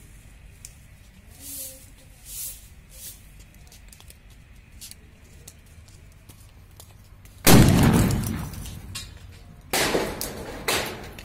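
A firecracker goes off under a clay pot with one loud bang that blows the pot apart, its noise dying away over about a second. Two more sharp bangs follow, about two and three seconds later.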